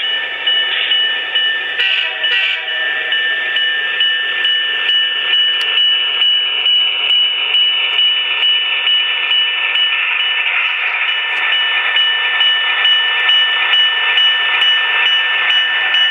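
HO-scale Alco RS-27 model locomotive's Quantum sound decoder playing a diesel engine running, with a rhythmic pulse through a small tinny speaker and a steady high whine. A few clicks about two seconds in.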